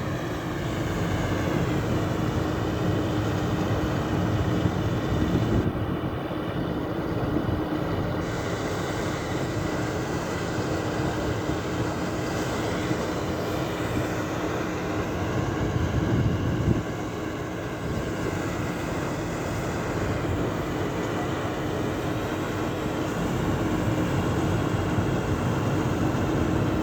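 Heavy diesel farm machinery, a tractor and a combine harvester, running steadily with a constant low engine drone, as a tractor pulls the combine out of mud.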